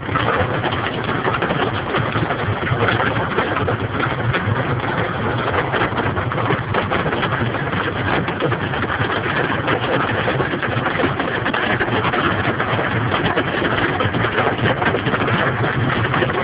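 Heavy storm rain drumming steadily on a car's roof and body, heard from inside the car: a dense patter of countless drops.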